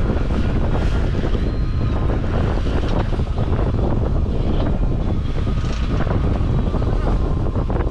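Steady wind rumble on the microphone aboard a sport-fishing boat at sea, with boat and water noise beneath it.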